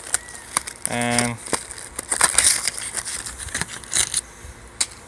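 Fidget spinners being handled: scattered irregular clicks, taps and crinkling.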